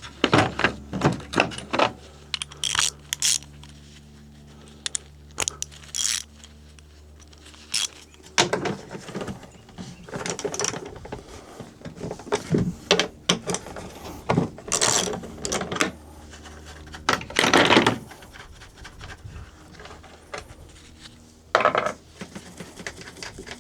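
Hand tools clinking and clanking against the metal parts of a corn planter's drive mechanism as it is worked on, with irregular sharp metallic clicks and a longer rasping stretch near the end.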